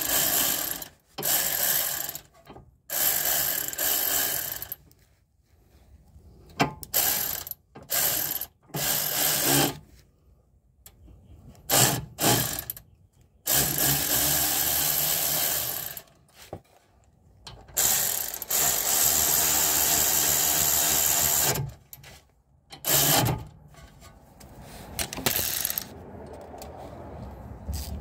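Impact wrench running in repeated bursts of one to three seconds with short pauses between, driving the brake caliper's sliding pins home.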